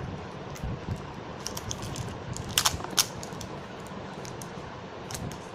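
Foil wrapper of a chocolate surprise egg crinkling and tearing as it is peeled off by hand: a scatter of small crackles, with two sharper ones near the middle.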